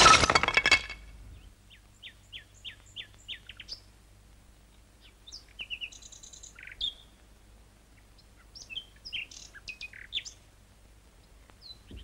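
Songbirds chirping and trilling in short, scattered phrases of high rising and falling notes, birdsong laid over a cartoon's outdoor scene. In the first second, a loud ringing crash closes the opening theme music.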